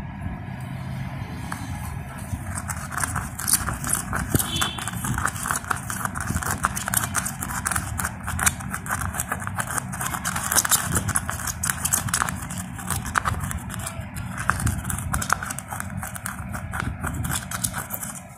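Cumin seeds being crushed in a coconut shell with the face of a hammer: a rapid, uneven run of small knocks and gritty crunches as metal grinds and taps against the seeds and shell.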